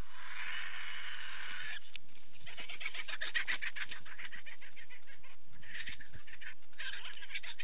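Griffon vultures squabbling at a carcass: a long harsh hiss, then a rapid rattling, cackling chatter, and two shorter hissing bursts near the end.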